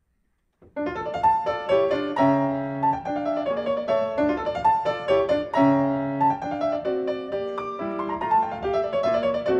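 Grand piano playing classical music, starting abruptly from silence under a second in, with quick runs of notes over held chords.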